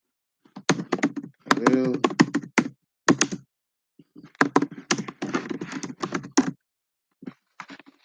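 Typing on a computer keyboard: quick runs of key clicks for about six seconds with a short pause in the middle, then a few last keystrokes near the end, and a brief murmur of voice about two seconds in.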